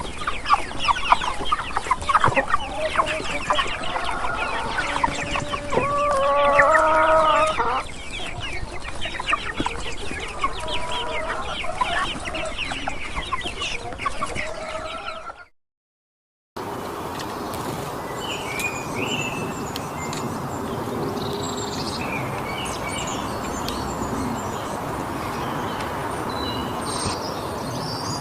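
Hens clucking busily, with a rooster crowing once about six seconds in. After about fifteen seconds the sound cuts out for a second, and a steady outdoor background with small birds chirping follows.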